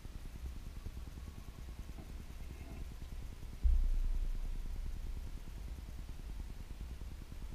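Low rumble of handling noise from a camera held at a microscope eyepiece, with a sudden thump about halfway through that fades over a few seconds.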